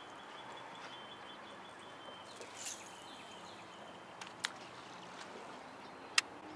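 Quiet open-air background noise with a few sharp clicks and taps from fishing tackle being handled in a boat; the loudest click comes near the end.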